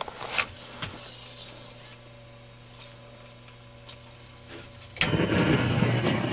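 Wurlitzer 3700 jukebox humming, with faint clicks and rubbing from its mechanism. About five seconds in, a record suddenly starts playing through its amplifier with one stereo channel disconnected from the cartridge, so only one side of the music comes through.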